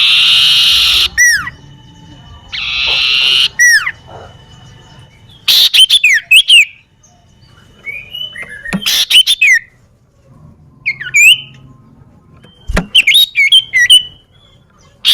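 Common iora (cipoh) calling: two harsh chattering bursts of about a second each, then groups of sharp, loud whistled notes that slur downward. A single short knock comes about three-quarters of the way through.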